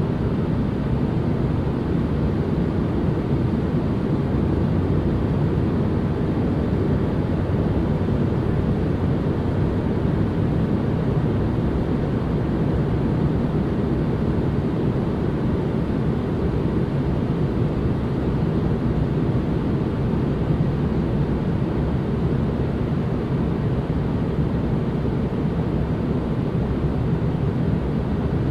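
Steady white noise for relaxation: an even, unbroken hiss weighted toward the low end, with no changes.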